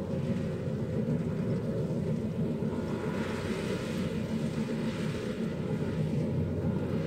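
Combine harvester working in a rice field at a distance: a steady low engine drone, with a higher hiss swelling about three seconds in and fading again.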